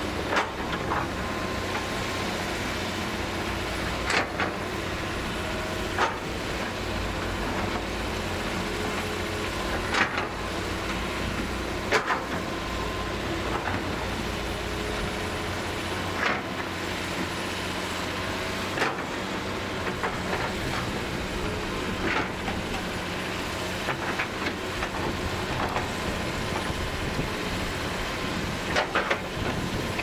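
Hitachi hydraulic excavator's diesel engine running steadily as it digs, with sharp knocks from the bucket and rocks every few seconds.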